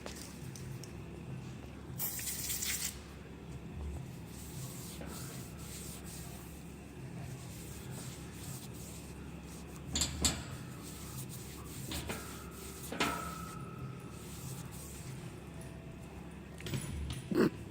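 A short hiss of aerosol spray lubricant about two seconds in, then a few scattered metallic clicks and knocks of barbell sleeve parts being handled, one leaving a brief ringing tone, and a clatter near the end.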